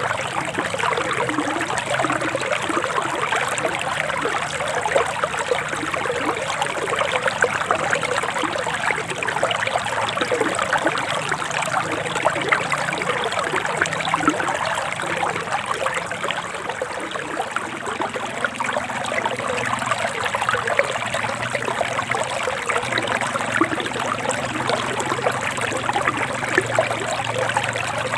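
Forest stream flowing and babbling steadily over stones, a continuous splashing trickle.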